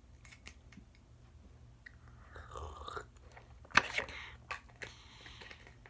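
Close mouth sounds of chewing while tasting, with small clicks of a plastic bottle being handled and one sharp knock about four seconds in.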